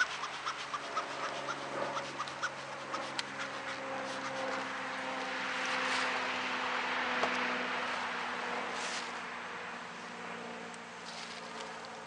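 Honeybees humming steadily in an opened hive while a bellows smoker is worked over the frames to drive them down. There is a run of light clicks in the first few seconds and a hiss that swells and fades around the middle.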